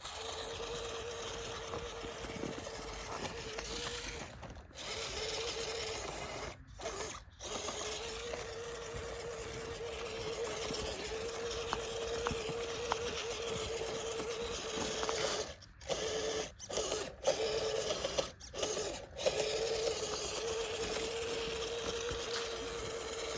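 Small RC crawler's electric motor and gear drive whining steadily as it climbs, cutting out briefly about eight times as the throttle is let off and picked up again.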